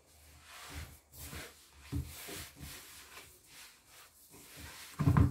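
Gloved hands rubbing and kneading a crumbly semolina-and-flour dough in a wooden bowl: a run of soft scraping strokes, with a dull thump near the end.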